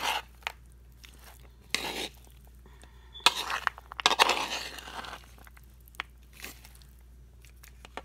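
Metal spoon stirring and folding a chunky mayonnaise-dressed chicken salad in a bowl: several short wet, crunchy scraping bursts, the longest about four to five seconds in, with sharp clicks of the spoon against the bowl.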